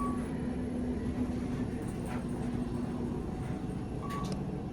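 Kone traction elevator cab in travel, a steady rumble and hum throughout. A short high beep sounds at the start and another about four seconds in.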